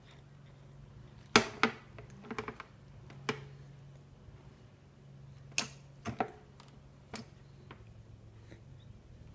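Irregular sharp plastic clacks and taps, some in quick pairs, as a baby knocks a plastic fruit feeder against the plastic tray of an activity seat.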